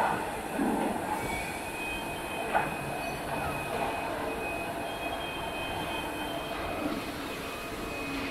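Steady din of plastic injection-moulding machines and conveyors running, with a thin high whine that sets in about a second and a half in and a few light knocks.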